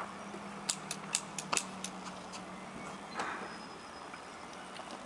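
A quick run of about six light, sharp taps in the first two seconds, with a faint steady hum underneath that fades out, then a low outdoor background.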